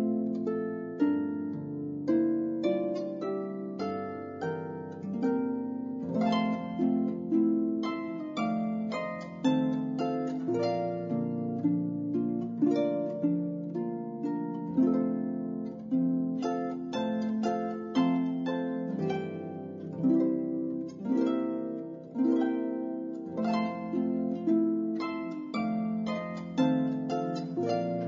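Background music of plucked-string notes in a flowing, gentle melody: many quickly fading notes over held low notes.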